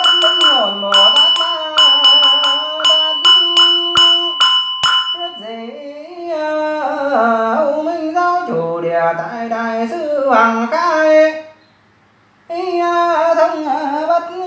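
A Buddhist monk chanting a Vietnamese sutra in one sung voice, with a brief break about twelve seconds in. Over the first five seconds a bell rings on beneath the chant while a run of sharp strikes comes faster and faster, a roll that closes a section of the chant.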